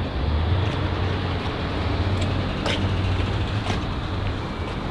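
Steady rumble of road traffic and idling vehicles, with two short clicks about three and four seconds in.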